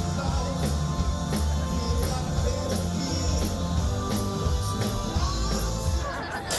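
Rock and roll song with a steady drum beat, bass and guitar, with some singing.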